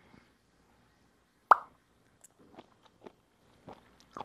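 Eating sounds: one loud sharp clack about a second and a half in, then a few faint clicks of chewing as raw abalone is eaten.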